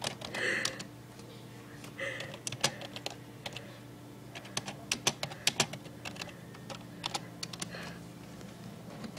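Typing on a computer keyboard: irregular runs of keystroke clicks with short pauses between them, over a faint steady hum.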